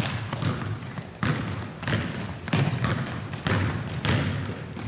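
Basketball bouncing on a hardwood gym floor among players' running footsteps: a string of irregular thuds that ring in the large hall.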